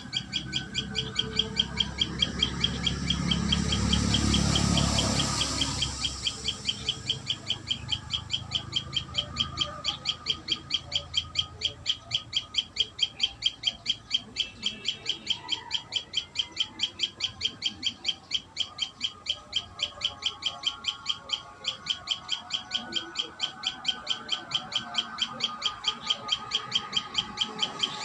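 A common tailorbird calling, one sharp high note repeated evenly about three times a second without a break. A low rushing noise swells and fades a few seconds in.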